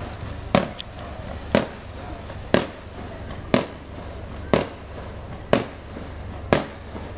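Fireworks going off in a steady series of sharp bangs, one about every second, seven in all.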